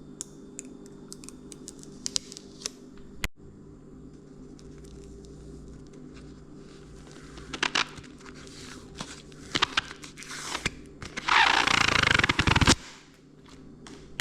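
Handling noises: scattered clicks and scrapes, then a loud rough scraping burst about a second and a half long near the end.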